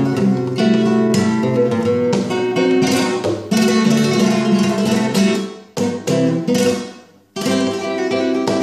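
Solo flamenco guitar playing bulerías: quick picked notes and sharp strummed strokes. The playing dies away briefly about seven seconds in, then starts again abruptly.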